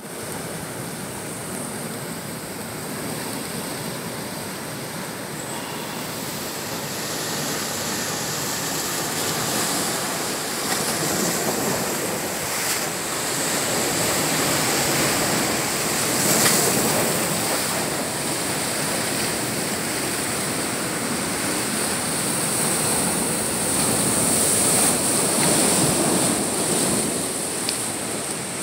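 Ocean surf washing against a rocky shore: a steady rushing that swells and eases slowly.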